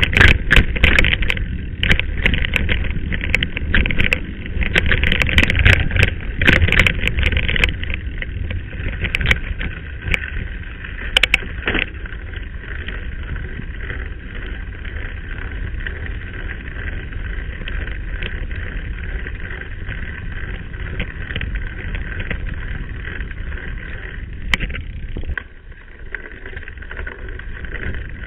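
Mountain bike riding over a rough dirt track, heard from a camera mounted on the rider or bike: wind rushing on the microphone, with frequent rattles and knocks from the bumpy ground for roughly the first twelve seconds, then a steadier rush.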